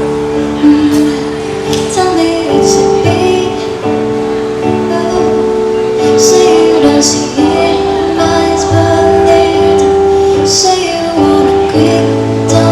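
Music: a song with a woman singing over held instrumental chords.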